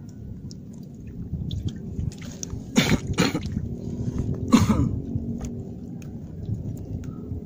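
A man coughing: two quick coughs about three seconds in and another about a second and a half later, over a steady low rumble.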